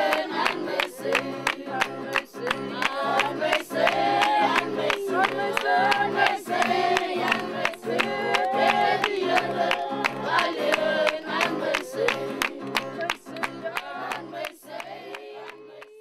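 A small choir singing over a steady rhythmic accompaniment, fading out near the end.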